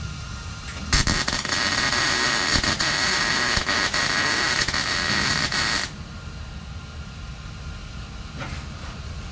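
MIG welder laying a tack weld on 18-gauge sheet steel: a loud, steady crackling hiss that starts abruptly about a second in and cuts off about five seconds later.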